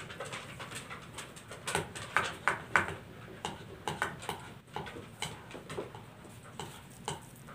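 Sticky glue-and-detergent slime being stirred with a spatula in a glass bowl: irregular wet squelches and clicks, busiest about two to three seconds in.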